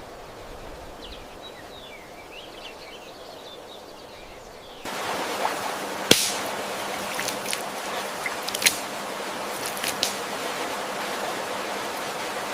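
A faint hiss with a few faint high chirps, then about five seconds in a louder, steady rush of water sets in, with several sharp cracks and clicks over it.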